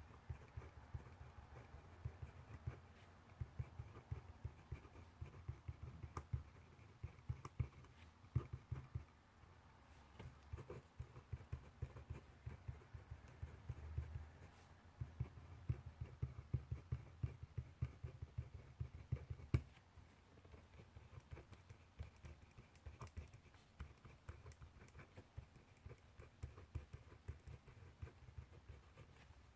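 Handwriting on paper: a dense, uneven run of small scratches and taps from the writing strokes, with faint knocks on the desk beneath them.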